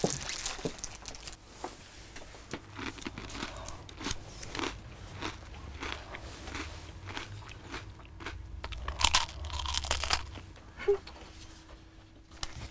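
Gold foil sweet wrappers crinkling and crackling as they are picked up and handled, in irregular small crackles with a denser, louder patch about nine seconds in, along with crunching.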